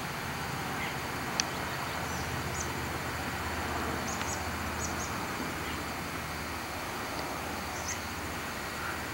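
Steady background hiss with a low hum, with a few faint, short high chirps from small birds scattered through it and a single sharp click about a second and a half in.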